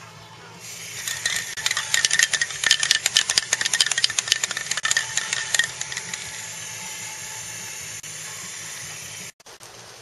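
Handheld paint sprayer spraying: a hiss with a rapid clatter of clicks for the first few seconds, then a steadier hiss that cuts off shortly before the end.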